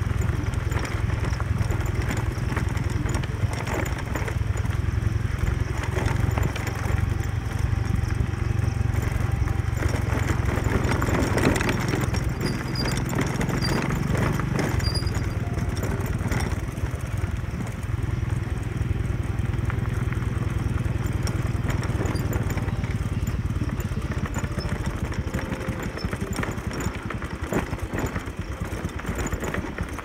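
Motorcycle engine running steadily while riding slowly along a rough gravel dirt road, with frequent small knocks and rattles from the bumpy surface.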